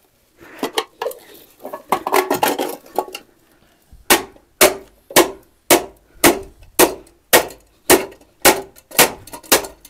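A metal cash box being forced open: a few seconds of metallic clinking and rattling, then about eleven sharp, even hammer blows, roughly two a second.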